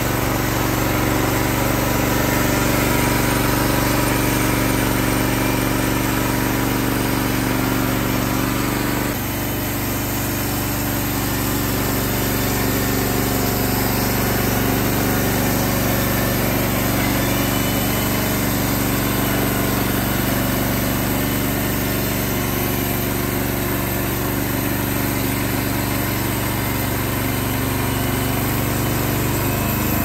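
Wood-Mizer LX55 portable band sawmill running on its 14 hp Kohler engine while the band blade saws along a white pine cant, a steady engine drone. The sound drops a little and shifts in tone about nine seconds in.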